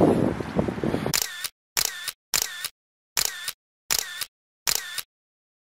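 Wind and surf on the microphone for about a second, then six camera shutter clicks at uneven gaps of about half a second to a second, with dead silence between them.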